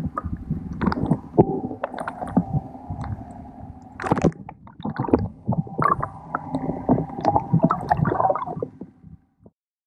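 Water gurgling and sloshing heard underwater, with irregular clicks and knocks over a steady hum, fading out near the end.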